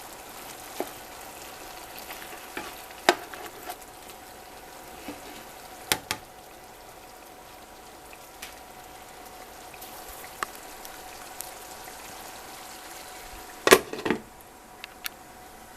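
Smoked sausage, bell peppers and onions sizzling steadily in oil in a frying pan on low heat. A few sharp knocks break in, the loudest about two seconds before the end.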